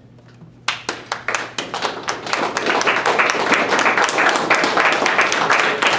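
Audience applauding: a few separate claps just under a second in, quickly filling out into steady clapping by many hands.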